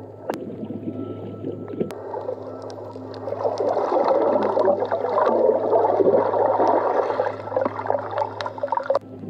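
Underwater sound picked up by a submerged camera as snorkelers dive: muffled bubbling and rushing water over a steady low hum, growing louder a few seconds in and dropping off sharply near the end.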